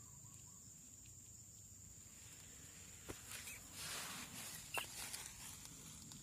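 Outdoor ambience: a steady high-pitched insect drone, with a couple of sharp clicks and a brief rustling noise around the middle.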